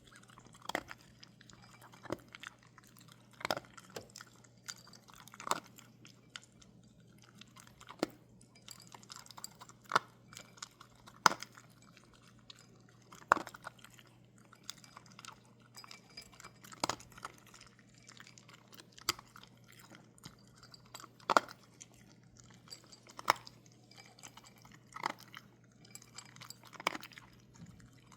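A dog chewing and crunching on food, with sharp irregular crunches every second or so. A low steady hum underneath.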